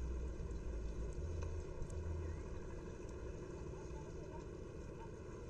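A low, uneven rumble over faint steady outdoor background noise, with a few faint ticks.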